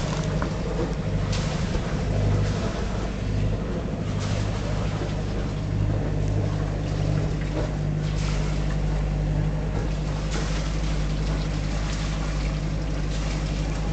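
A marine diesel engine idling, a steady low hum, with short bursts of rushing noise every few seconds.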